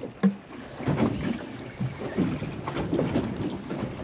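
Choppy sea water slapping unevenly against a small boat's hull, with wind buffeting the microphone.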